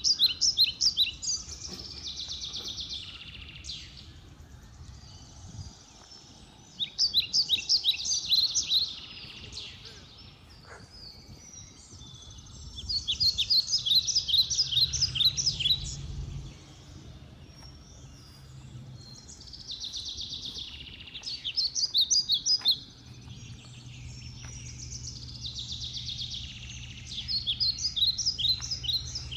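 A songbird singing outdoors: phrases of quick, high, chirping notes, each lasting a second or two, repeated every few seconds. A faint low hum is heard under the song at times.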